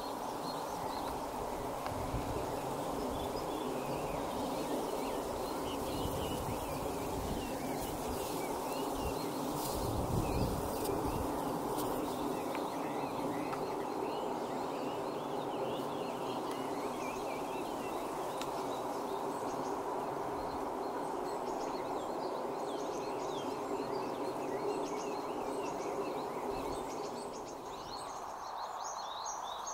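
Scattered short chirps of small birds calling in the background over a steady low background hum, with a few low rumbles in the first half.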